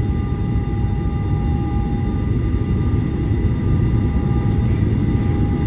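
Cabin noise of a Boeing 737-800 taxiing after landing: a steady low rumble from the CFM56 engines and the airframe, with a few thin steady tones above it. One of these tones fades out about two seconds in.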